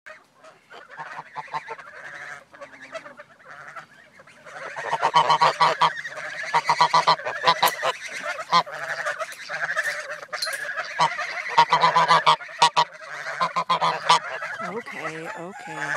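A group of Toulouse geese honking close by. The calls are softer and sparser at first, then from about four and a half seconds in they become loud, overlapping and nearly continuous.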